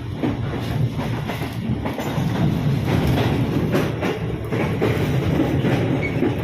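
Background music with drums, over the steady running noise of a passenger train carriage.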